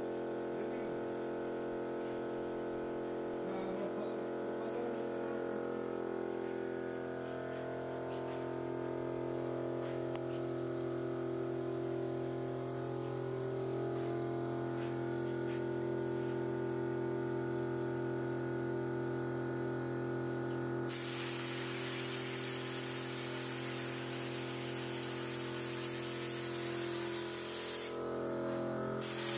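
A steady hum made of several held tones, joined about two-thirds of the way in by a loud, even spraying hiss that breaks off briefly near the end and starts again.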